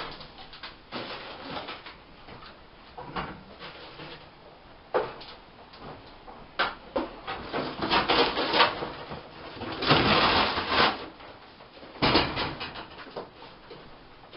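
Irregular rustling, scraping and knocking of things being handled, among them a cardboard box, in short bursts with the longest and loudest about ten seconds in.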